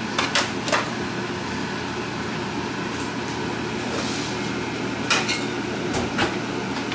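Metal carving knife and fork clinking three times against the foil roasting pan, then two more clinks of kitchenware near the end, over a steady background hum.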